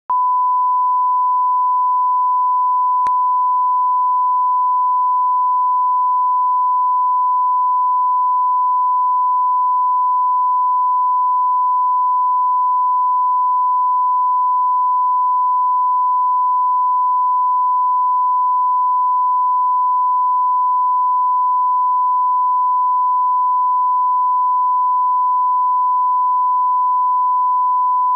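Broadcast line-up test tone: a single steady 1 kHz sine beep held unbroken at a constant level, the reference tone that goes with colour bars at the head of a TV master.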